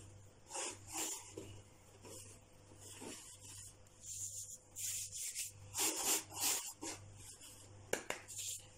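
Hands working butter into flour on a wooden board, the first stage of kneading pastry dough: soft, irregular rubbing and brushing strokes as fingertips crumble the mixture and palms rub together.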